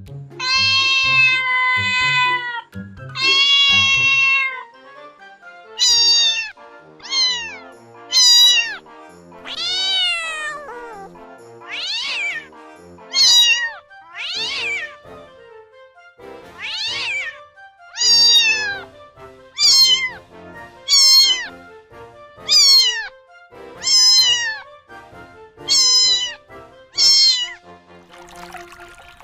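Domestic cat meowing over and over. Two long, held meows come first, then a string of short meows roughly one a second, many falling in pitch.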